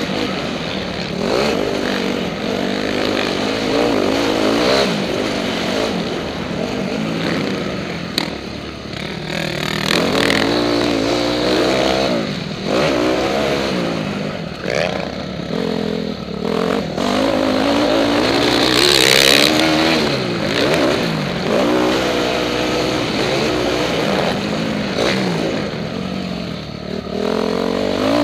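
Onboard sound of a 2012 KTM motocross bike's engine revving up and falling back again and again as it is ridden hard round the track, with wind rushing over the microphone. A brief loud rush of noise comes about two-thirds of the way through.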